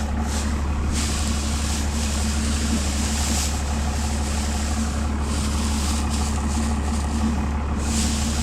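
John Deere 7510 tractor's diesel engine running steadily at a constant speed, with brief rustling now and then over it.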